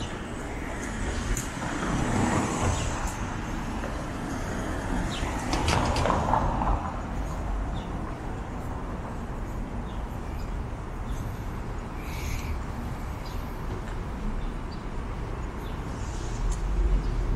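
City street traffic: cars passing on the road, over a low steady rumble, with two louder passes rising and fading about two and six seconds in.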